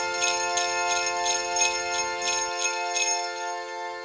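Music: sleigh bells shaken in a steady rhythm, about three shakes a second, over a held chord. The bells stop near the end and the chord fades out.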